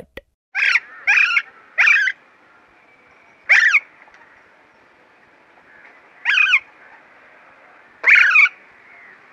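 Alexandrine parakeet calling: six short, loud calls, three in quick succession in the first two seconds, then single calls about every two to three seconds, over a faint steady hiss.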